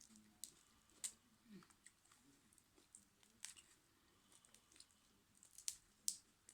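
Faint eating sounds: a person chewing food, with a handful of short, sharp crunches and clicks at irregular intervals.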